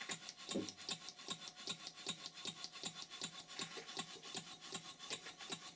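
Stuart 5A single-cylinder model steam engine running slowly on compressed air, puffing at an even beat of about four to five puffs a second as air enters and leaves the cylinder. Its valve timing has just been retarded and it has been freshly oiled with thick 1000-grade steam oil.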